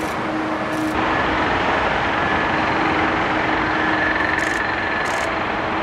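Boeing 747 freighter's jet engines running as it taxis: a steady rush with a high whine that grows stronger about four seconds in, mixed with motorway traffic noise.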